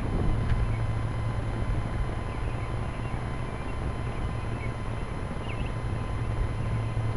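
Onboard sound of a radio-controlled Cessna 182 model aircraft in flight: its engine running with a steady low hum under the rush of air over the camera.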